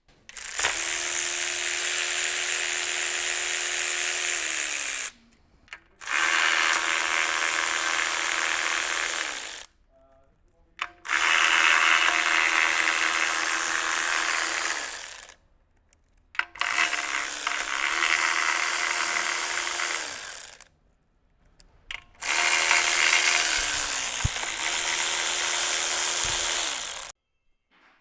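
Electric power tool running out engine bolts in five runs of about four seconds each. Each run is a steady motor whine that sags in pitch and stops as the trigger is let go, with short pauses between runs while it moves to the next bolt.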